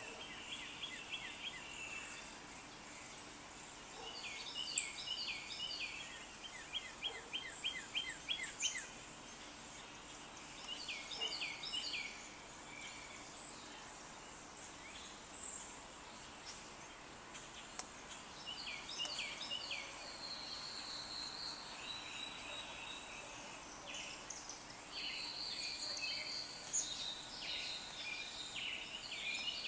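Several songbirds singing in turn over a faint steady background hiss. There are groups of repeated chirped phrases, a quick run of falling notes, and some higher whistled notes later on.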